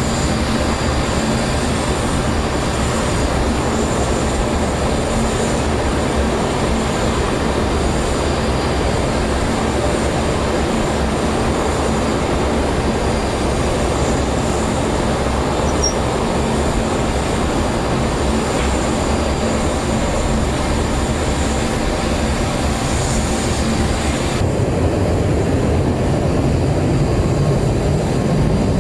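Steady, loud mechanical running noise from an engine or machine. About 24 seconds in its character changes and the high hiss drops away.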